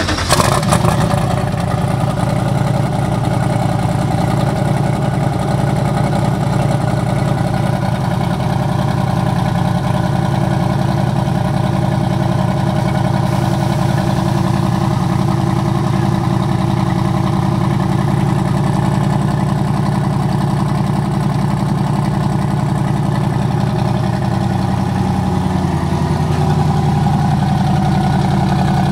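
Twin-turbo LS V8 of a 1965 Chevy C10 idling steadily with side exhaust, just after being started; the revs flare briefly in the first second, then settle.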